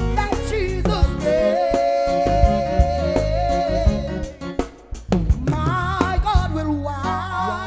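Live reggae band: drum kit hits, bass and a singer holding long, wavering notes, with a brief drop in the middle before the voice comes back in higher.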